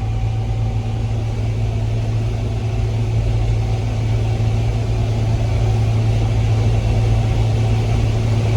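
Combine harvester running steadily while harvesting corn: a continuous low engine and machinery drone with faint steady tones above it, getting slightly louder over the seconds.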